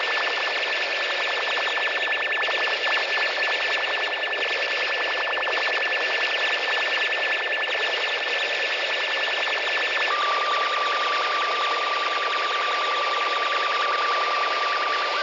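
Lo-fi noise piece: a dense wash of hiss under a steady high alarm-like tone and a fast pulsing buzz. About ten seconds in, the tone drops to a lower pitch and the upper pulsing stops.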